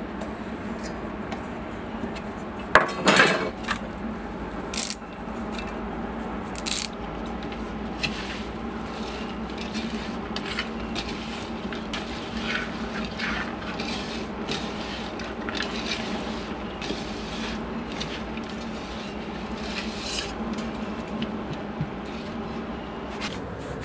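Hand mixing raw anchovies with chopped shallots, raw mango and curry leaves in a metal pot: wet rustling and squishing, with fingers knocking and scraping against the pot's side in many small clicks. A louder clatter comes about three seconds in.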